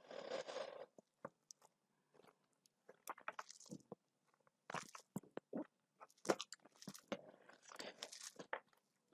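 A person chewing food, with intermittent crunches and small mouth clicks scattered through, and a longer chewing burst in the first second.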